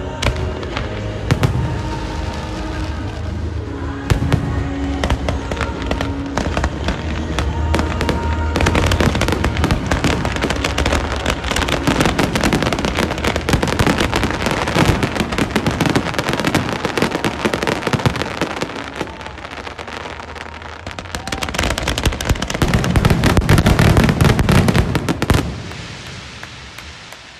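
Aerial fireworks in a dense finale barrage: rapid overlapping shell bursts and crackling, with music playing under them for the first several seconds. The barrage peaks in a loud stretch a few seconds from the end, then dies away.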